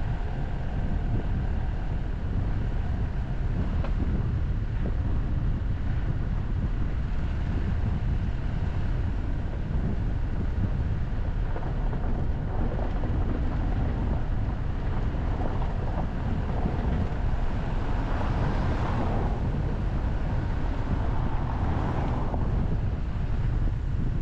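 A moving car's road and wind noise: a steady low rumble with wind buffeting the microphone, and two brief swells of louder noise near the end.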